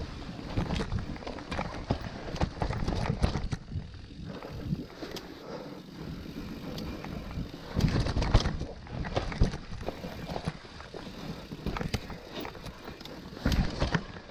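Mountain bike riding down a dirt trail: tyres rolling over the ground and the bike clattering and rattling over bumps in an uneven stream of knocks, with heavier jolts about eight seconds in and near the end.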